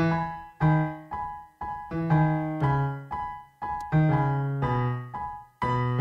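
Background music played on a piano-like keyboard: a light melody of single struck notes that start sharply and fade, about two a second.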